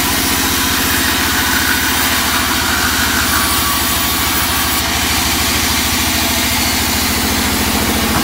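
Band saw running while a teak board is fed through it: a steady mechanical drone with a fast, even low throb.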